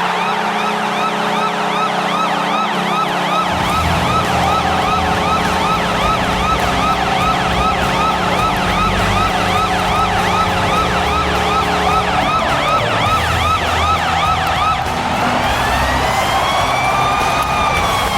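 Washington Capitals goal horn: a steady low horn chord sounds together with a fast yelping siren, and a low rumble joins a few seconds in. About 12 seconds in the horn stops, and the siren changes to a slow wail that rises and then falls.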